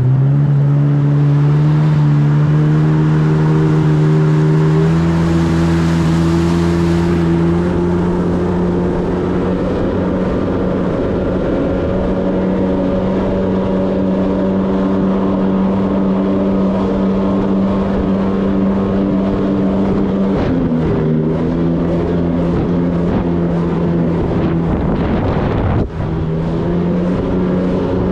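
Sea-Doo jet ski engine running steadily under way, over a rush of noise. The note climbs a little over the first few seconds, dips briefly and comes back up about two-thirds through, and cuts out for an instant near the end.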